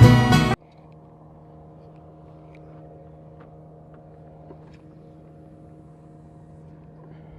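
Music cuts off suddenly about half a second in, leaving a faint, steady engine hum at one low, unchanging pitch.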